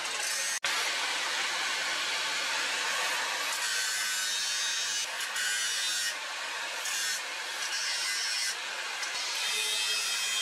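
Angle grinder's abrasive disc grinding the edge of a steel blade cut from a motorcycle brake disc: a steady, harsh grinding noise that breaks for an instant about half a second in and eases briefly a few times as the pressure on the blade changes.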